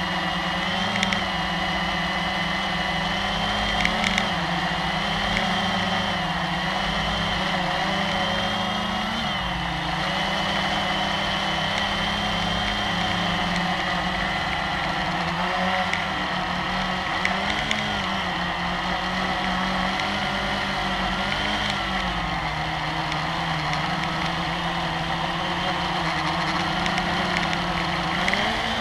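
Blade 350QX quadcopter's four brushless motors and propellers buzzing steadily in flight, heard from the camera on board. The whine's pitch wavers up and down as the motor speeds change. A couple of brief clicks come about four seconds in.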